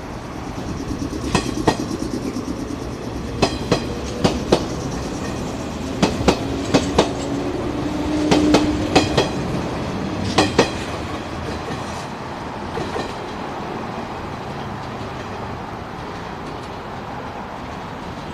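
Electric multiple-unit train passing close by, its wheels clicking over the rail joints in quick pairs as each bogie goes over, over a steady rumble. The clicking stops about eleven seconds in, and the rumble fades as the train moves off.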